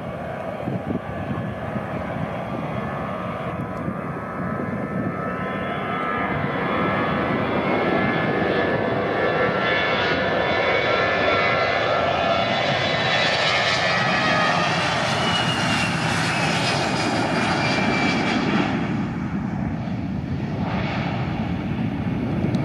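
Twin-engine jet airliner on its takeoff roll, its turbofan engines at takeoff thrust: a steady rush that grows louder as it speeds past, with the engines' whine falling in pitch as it goes by.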